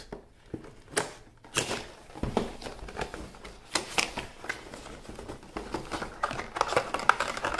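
Cardboard headphone box being opened by hand, its flaps pulled open and the inner card tray slid out: a series of sharp clicks, taps and scrapes of card, with a denser rustle near the end.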